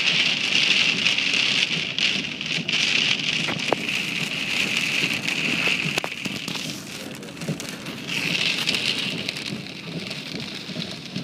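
Heavy rain hitting a car's windshield and roof, heard from inside the moving car as a steady hiss of drops. It eases briefly about seven seconds in, then picks up again.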